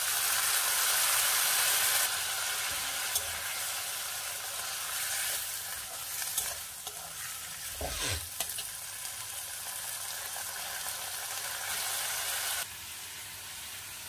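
Boiled chickpeas frying in hot oil and spices in a metal kadai, sizzling loudest in the first couple of seconds after they go in. A steel spatula stirs them, with a few scrapes and knocks against the pan.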